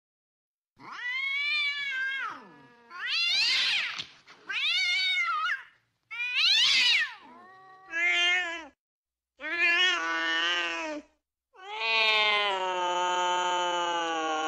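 Domestic cats yowling (caterwauling) in mating calls: about seven drawn-out wailing cries, starting about a second in, each rising and falling in pitch, the last one long and held nearly level.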